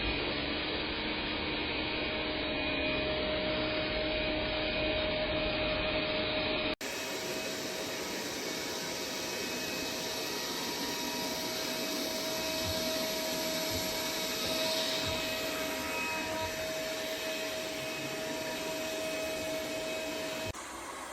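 Dreame L10s Ultra robot vacuum running: a steady motor and airflow noise with a few held tones. About seven seconds in it cuts sharply to another stretch of the same steady running.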